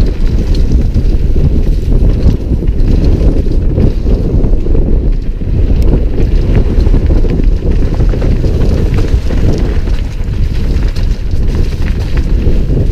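Loud wind noise on an action camera's microphone during a fast downhill mountain-bike descent, with scattered clicks and rattles from the bike and its tyres on a dry dirt trail.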